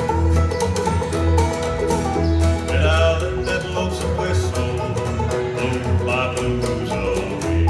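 Live bluegrass band playing, with a slapped bass keeping a steady beat under plucked string instruments, banjo among them.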